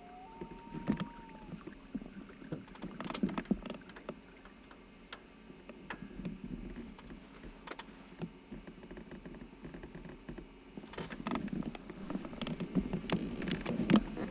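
Scattered light knocks and clicks of gear being handled in a small fishing boat. The clicking gets busier and louder over the last few seconds.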